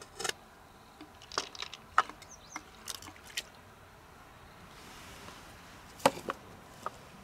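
Scattered sharp clicks and taps of hard river mussel shells knocking together as they are handled, in a cluster starting about a second in and another about six seconds in.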